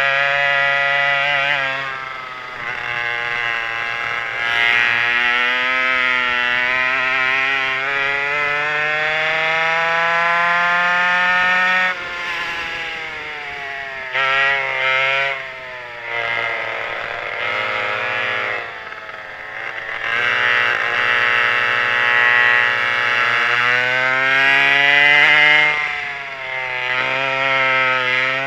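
Pair of McCulloch 5.3 ci converted chainsaw two-stroke engines on a racing kart, revving hard: the pitch climbs steadily for about ten seconds, drops suddenly about twelve seconds in as the throttle comes off for a corner, wavers low, then climbs again, with another sharp drop and climb near the end.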